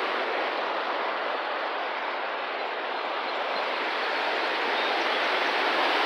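Fast stream water rushing and churning over rocks in white water below a water-powered mill, a steady hiss that grows a little louder toward the end.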